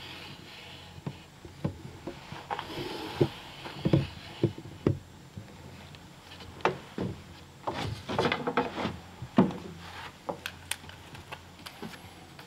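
Pencil scratching along a wooden template laid on a log, followed by scattered knocks, taps and rubs as the template and hands are shifted about on the wood.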